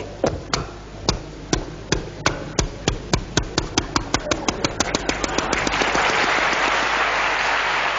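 Engine of a motorised country boat (a shallow engine) starting on a last try after misfiring. Sharp irregular pops speed up into a rapid rattle, then catch into a steady noisy run about five and a half seconds in.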